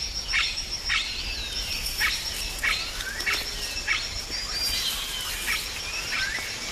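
Rainforest ambience: an insect gives a steady, high, finely pulsed trill while birds repeat short chirps and down-sweeping calls, several each second.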